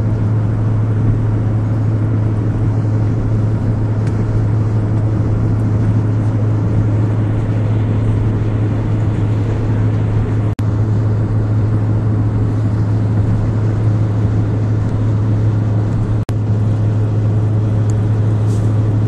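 Steady drone of a car on the move, with low engine and road rumble, as heard from inside the cabin. It breaks off for an instant twice.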